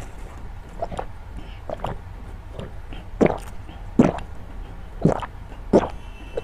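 Close-miked gulps of milk tea drawn through a straw and swallowed, a series of short gulps about one a second, louder from about three seconds in.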